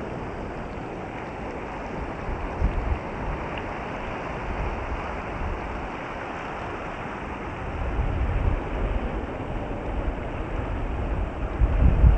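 Outdoor wind and surf: a steady rush of sea surf with wind gusts buffeting the phone's microphone, the gusts heavier in the last few seconds.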